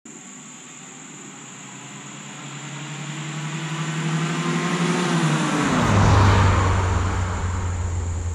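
1978 Datsun 210 driving past: its engine grows steadily louder as it approaches, then its note drops sharply in pitch as it goes by about six seconds in, at its loudest.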